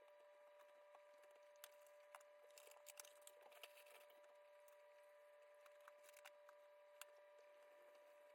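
Near silence: faint room tone with a steady high hum and a few faint clicks and rustles, a small cluster of them about three seconds in.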